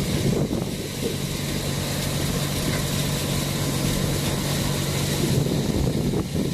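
Tractor-driven thresher running steadily while threshing chickpeas: a continuous rushing machine noise over a steady low engine hum.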